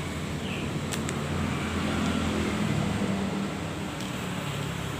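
Steady low background rumble that swells slightly midway, with a single light click about a second in.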